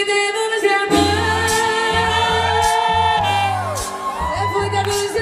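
Merengue song playing, a singer's voice gliding over the band, with a pulsing bass beat coming in about a second in.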